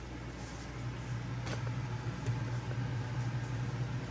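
A steady low hum, like a small motor or fan running, which grows louder about a second in, with a light click partway through.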